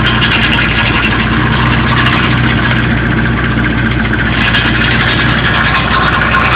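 2001 Ford Escort's four-cylinder engine idling steadily, with a rattle from an exhaust heat shield that has come loose.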